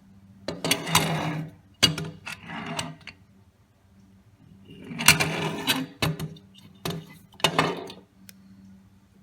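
Parts of a disassembled Autolite 4100 carburetor being handled: metal pieces clinking and rattling in four short bursts with sharp clicks and quiet gaps between them.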